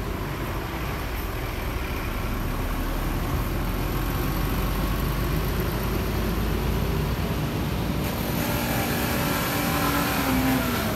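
Bus engine running over a steady rumble. Its pitch climbs slowly as it revs up, then drops away near the end.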